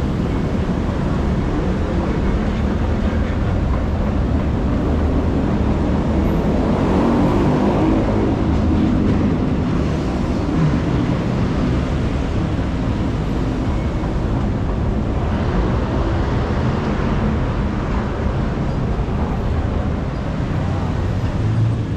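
Loud, steady din of a train station, a rumble of trains and traffic, with a pitched swell about seven to nine seconds in.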